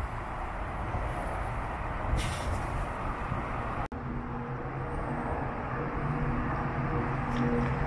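Steady city traffic noise, broken by a sudden cut in the sound about four seconds in; after the cut a steady low engine-like hum sits under the traffic.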